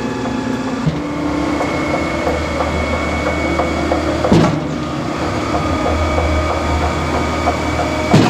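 Truck-mounted concrete pump running under remote control: a steady engine and hydraulic hum whose pitch steps up about a second in and shifts again midway. A sharp clunk comes twice, about four seconds apart, as the pumping cylinders change stroke.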